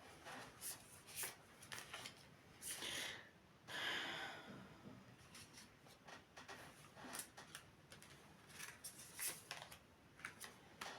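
Faint rustles and soft clicks of tarot cards being handled and laid out, with a couple of longer brushing sounds about three and four seconds in.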